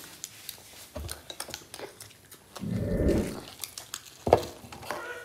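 People eating chicken pieces by hand: scattered small clicks and chewing sounds, with one short, low, rumbling grunt about three seconds in.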